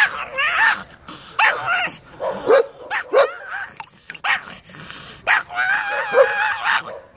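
Small Pekingese dog barking in a run of short, high yaps and whining calls. About five and a half seconds in comes one longer, wavering call.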